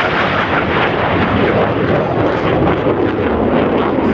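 Loud, steady jet roar from Blue Angels F/A-18 Super Hornets in flight.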